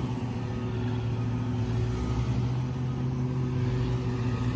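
Heavy diesel engine of large mining machinery running steadily: a deep, even drone with no change in pitch.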